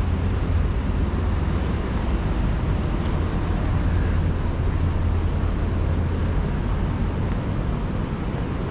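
Steady low engine hum with constant rumbling street noise, no distinct events.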